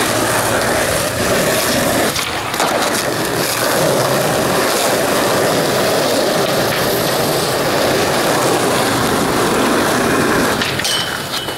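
Skateboard wheels rolling over rough asphalt, a steady loud rumbling hiss that eases off near the end.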